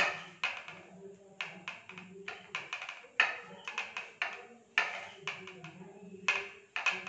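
A hand pressing and patting a cutlet into breadcrumbs on a steel plate: an irregular string of sharp clicks and taps, with a steady low hum underneath.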